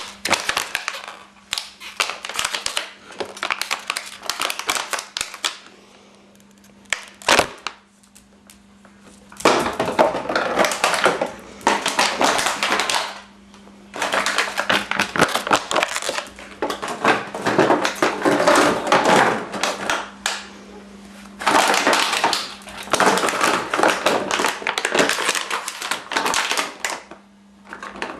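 A dog chewing and crushing an empty plastic bottle: crinkling, crackling plastic in bursts of several seconds, with a pause of about three seconds a quarter of the way in.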